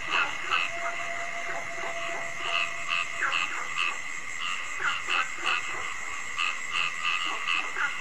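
Frogs calling at night in short notes repeated a few times a second, over a steady high-pitched chorus.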